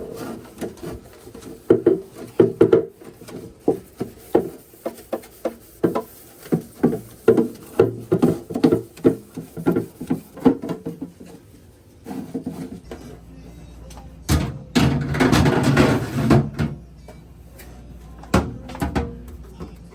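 A run of irregular sharp knocks and clatters, as of hard objects being handled and set down. About two-thirds of the way through comes a couple of seconds of rushing noise, then a few more knocks.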